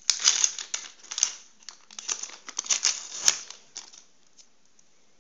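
Football stickers and their packet wrapper rustling and crinkling in the hands, in quick bursts, dying away about four seconds in.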